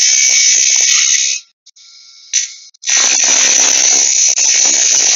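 Parting tool plunging straight into a spinning wooden spindle on a Shopsmith lathe: a loud, high scraping cut that stops about a second and a half in. A second plunge cut starts about three seconds in. Each cut sizes a diameter to the caliper setting.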